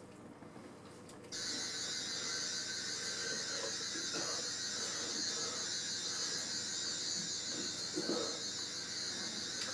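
Sonic screwdriver from Doctor Who buzzing: a high, wavering electronic whine that switches on about a second in and holds steady.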